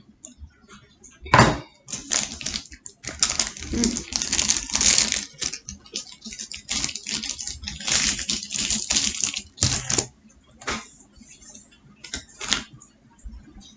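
Crinkling and rustling of a chocolate bar's paper wrapper being unwrapped by hand, in irregular crackly bursts, with one loud knock about a second and a half in.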